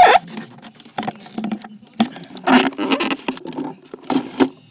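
Handling noise right on a phone's microphone: fingers rubbing, scraping and knocking against the phone and the model plane's cockpit in a string of irregular bursts as the phone is fitted in.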